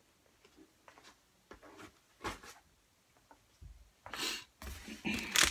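Light, scattered knocks and clicks of boxed items and packaging being handled, with a louder rustle about four seconds in and more rustling near the end.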